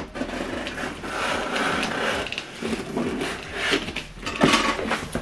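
Blade cutting the packing tape on a cardboard box, a scraping, tearing rasp, followed by a series of sharp clicks and knocks of cardboard being handled.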